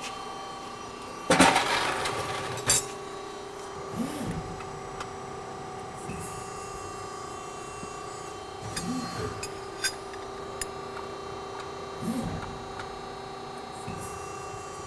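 CNC press brake running with a steady hum, with a few short swells that rise and fall in pitch as the machine cycles while a narrow 11-gauge stainless steel strip is bent. Light metallic clinks come from the strip being placed against the tooling. A loud rushing burst comes about a second and a half in.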